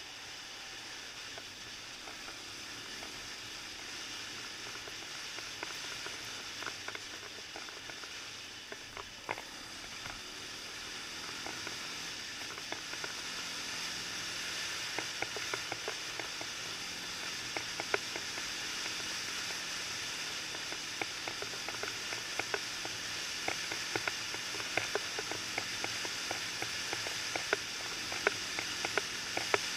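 Steady hiss of wind and road noise picked up by a camera on a moving quad bike, the engine itself barely audible. Scattered sharp clicks and ticks grow more frequent in the second half, as the ride runs on a gravel track.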